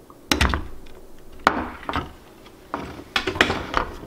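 Handling noise from an opened DJI Phantom 3 Standard remote controller's plastic case as small antenna cable connectors are pressed onto its circuit board with a small screwdriver: a run of irregular sharp clicks and knocks.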